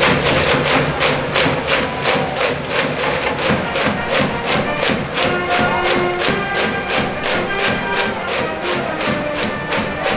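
A school cheering section's brass band and drums playing a fight song: a quick, steady drum beat of about three to four strokes a second, with the horns' melody coming in about halfway through.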